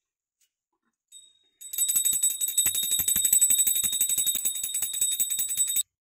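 Small brass puja hand bell rung rapidly in worship, a fast continuous clanging ring with a steady high tone. After one faint strike about a second in, it rings without a break from just under two seconds and cuts off suddenly near the end.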